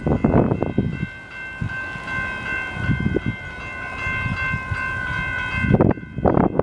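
Distant diesel locomotive air horn sounding one long, steady chord that drops away near the end, with wind gusting on the microphone.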